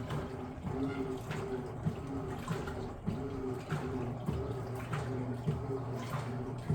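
Electrolux LF10 washing machine washing at medium water level: the motor hums while the agitator churns the water back and forth, with sloshing and splashing. The motor tones break off and resume repeatedly as the agitation reverses.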